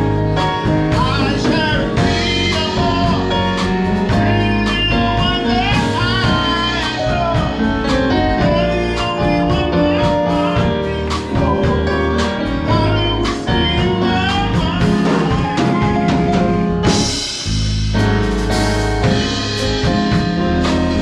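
Live band playing a song, with a singer, guitar and drum kit. The middle of the sound briefly drops out about three-quarters of the way through.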